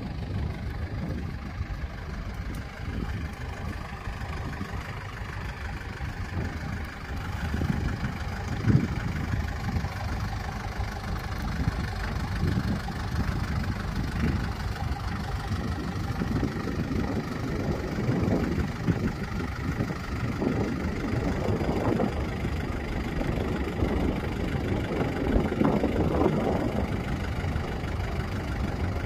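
Kubota tractor's diesel engine running at a steady idle-to-working speed, swelling louder for a moment several times.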